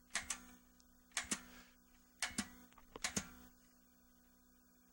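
Delco T400 8-track player clicking: four pairs of sharp clicks, about one pair a second, over a faint steady hum. A damaged tape is loaded and the player cannot play it.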